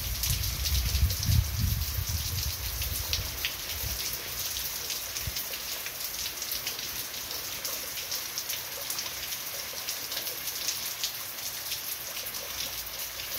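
Heavy rain falling steadily on pavement and pouring off a porch roof edge: an even hiss dotted with the ticks of single drops. A low rumble sits under it for the first few seconds.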